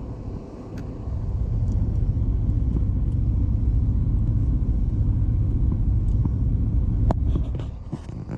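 Steady low rumble of a scooter ride, wind and road noise buffeting the microphone, rising about a second in and fading near the end, with a sharp click shortly before it fades.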